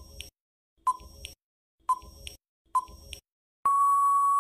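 Quiz countdown-timer sound effect: a short tick-tock about once a second, then a long, steady electronic beep starting about three and a half seconds in that signals time is up.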